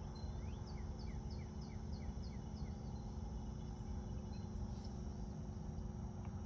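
Mini-split heat pump outdoor unit running in heating mode with a steady low hum as its compressor starts up. In the first three seconds a bird sings a quick run of about nine short chirps, roughly three a second.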